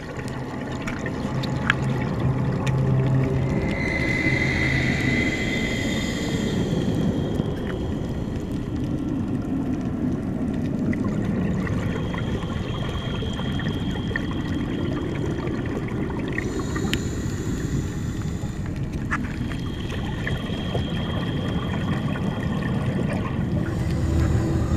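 Underwater ambient noise picked up by a dive camera: a steady rushing hiss and rumble of water, with a few faint high steady tones a few seconds long.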